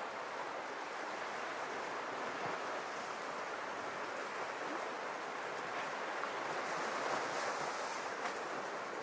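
Steady wash of small sea waves against the rocks of a small Mediterranean cove.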